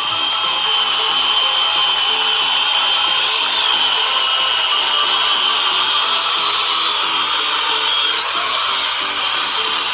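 Chainsaw running steadily at high revs with a wavering high whine, cutting into a tree trunk.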